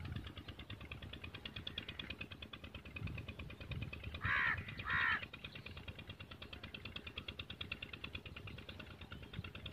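A crow cawing twice in quick succession, about four seconds in, over a tractor's diesel engine idling steadily.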